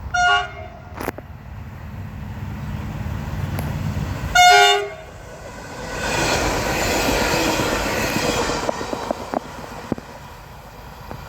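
Diesel passenger train sounding its horn twice, a short toot and then a louder blast about four seconds later, as its engine rumble builds on approach. It then passes with wheel and rail noise and a few clicks from the rail joints, fading away as it goes by.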